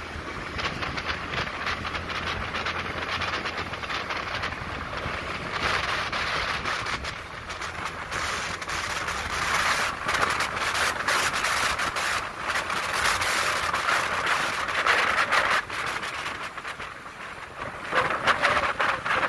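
Motorbike riding along a road, with wind rushing and buffeting over the microphone in gusts that rise and fall. A low engine hum sits underneath in the first few seconds.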